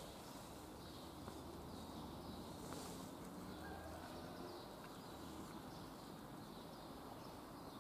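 Faint outdoor background: a steady low hiss with faint, distant small-bird chirps now and then.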